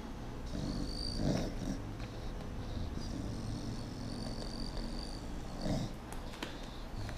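A small dog growling low and rumbling in its throat while blood is drawn from its front leg, a sign of discomfort rather than real aggression. The growl swells twice, about a second in and near six seconds.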